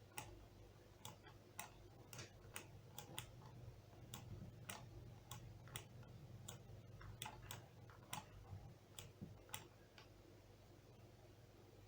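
Faint, irregular sharp clicks, roughly two a second, stopping about ten seconds in, over a low steady hum.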